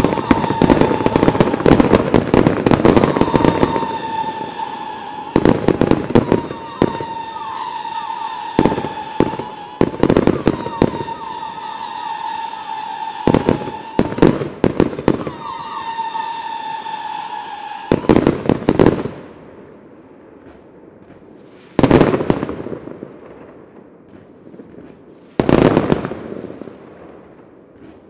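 Large fireworks display: a dense run of shell bursts and crackling bangs over a steady high whistle for most of the first eighteen seconds. After that the whistle stops and single loud shell bursts come a few seconds apart.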